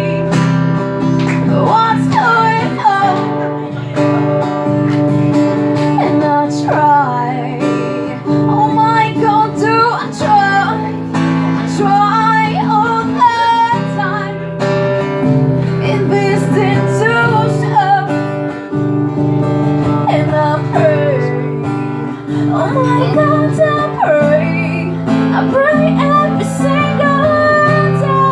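A woman singing live to her own strummed acoustic guitar, the voice carrying the melody over steady chords.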